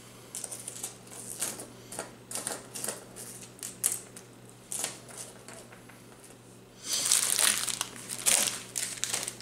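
Plastic crankbait lures and their packaging being handled: scattered light clicks and taps, then a denser run of plastic crinkling about seven seconds in.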